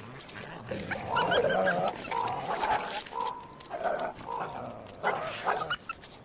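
Coyotes squabbling: a series of short snarls and yelps.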